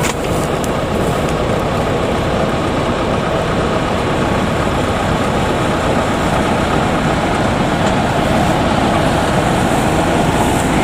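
Combine harvester's diesel engine running steadily and loudly.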